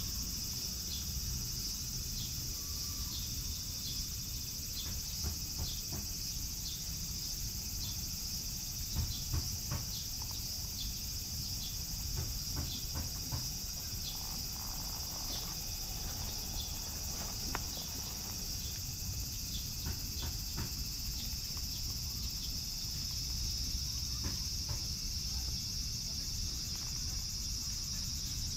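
Steady high-pitched chorus of chirping insects, with scattered small clicks and a low rumble underneath.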